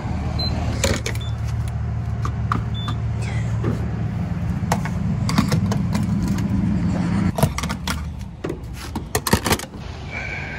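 Gas station fuel pump humming steadily while fuel is dispensed, with two short beeps from the pump early on. The hum stops partway through, followed by a run of clicks and clunks.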